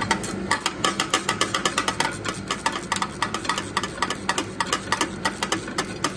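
Ratchet wrench clicking in quick, even runs, several clicks a second, as it turns out the last torque converter bolt.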